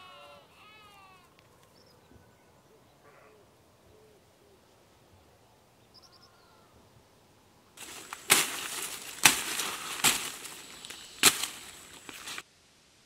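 Machete chopping through forest undergrowth: four loud, sharp chops about a second apart, with rustling in between, starting past the middle and cutting off suddenly. A few faint animal calls come before them.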